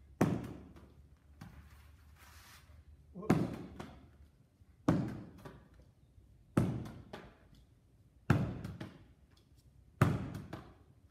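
A baseball thrown against a wall and fielded off the rebound with a leather glove, giving six sharp smacks spaced about every one and a half to two seconds. Each smack echoes briefly in a large room.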